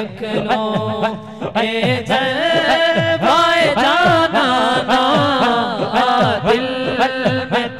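Devotional Urdu naat sung by men's voices over a sound system, with a steady low drone beneath and a rhythmic group zikr chant marking short low pulses about twice a second.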